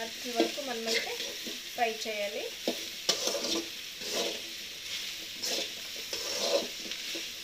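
Metal spatula stirring and scraping chopped okra around an aluminium kadai, clinking against the pan, over a soft sizzle of frying in a little oil. A person's voice is heard briefly twice in the first three seconds.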